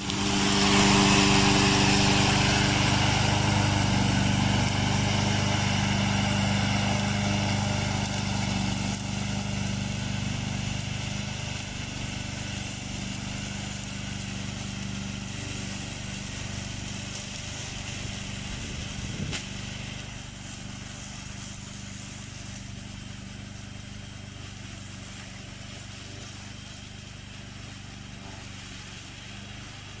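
Black Shark 800 remote-control slope mower's 764 cc two-cylinder gasoline engine running steadily, loud close by at first and growing gradually fainter as the tracked machine drives away.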